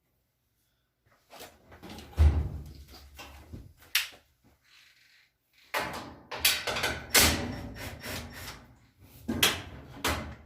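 Clunks, knocks and rattles of a Kenmore washer's top panel being handled and pulled back to free it, in three bouts, with a heavy thump about two seconds in.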